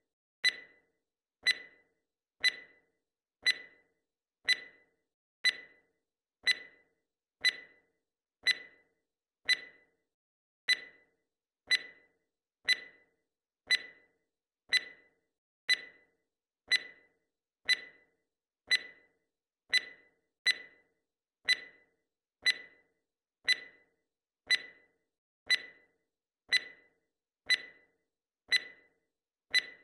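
Timer tick sound effect: one short, sharp tick every second, in step with the count.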